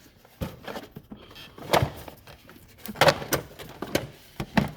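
Hand tools knocking and clattering as they are handled in a metal toolbox drawer: a string of separate knocks, the loudest about two and three seconds in.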